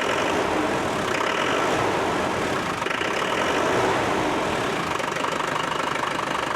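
Land Rover Defender 110's 300Tdi 2.5-litre four-cylinder turbodiesel running steadily at idle, with an even diesel clatter. The owner thinks he can now hear the turbo spinning over the engine after fitting a new boost hose and wastegate hoses.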